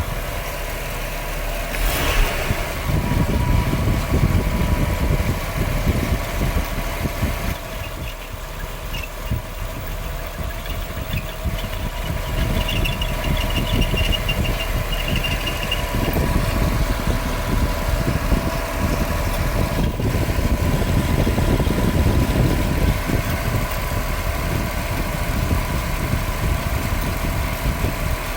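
Nissan Cedric PY31 engine idling, with a steady whine running over the rumble. The owners take the whine for the distributor's dry centre shaft, starved of oil.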